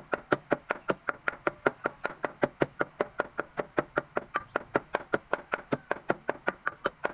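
Wooden pestle pounding garlic and red chili in an earthenware mortar, a steady run of knocks at about five or six strokes a second.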